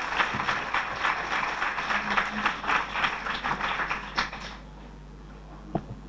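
Audience applauding in a hall, many hands clapping fast and unevenly, dying away about four and a half seconds in. Then low room noise with a faint knock near the end.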